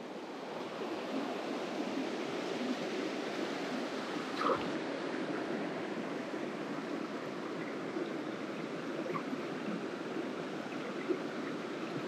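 Mountain stream water running steadily, with one small knock about four and a half seconds in.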